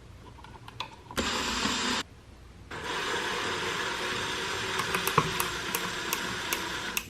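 Cordless power drill driving a screw: a short run about a second in, a brief stop, then a longer steady run with regular sharp clicks.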